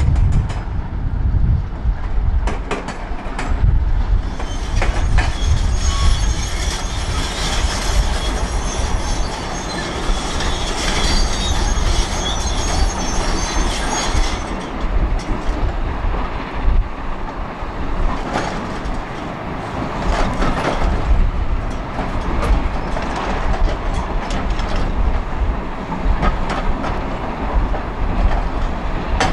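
Heavy diesel quarry machinery running loud: a Volvo L350F wheel loader's engine with high metallic squealing over it, then, after a cut, a Volvo EC380DL excavator working a hydraulic breaker against rock with irregular metallic clanks.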